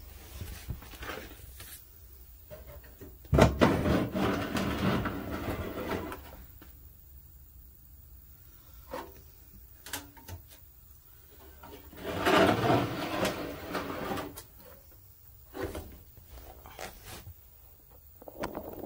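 A model 8535-IV RV furnace being worked out of its compartment. A sharp knock about three seconds in is followed by a few seconds of scraping and rubbing. A second stretch of scraping comes past the middle, with single clicks and knocks in between.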